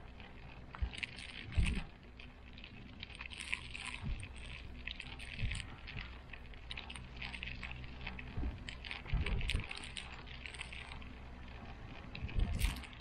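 Cable car gondola cabin in motion: a steady low hum with light rattling and ticking from the cabin, and a few knocks. Near the end a louder clattering clunk comes as the cabin passes a line tower's sheave wheels.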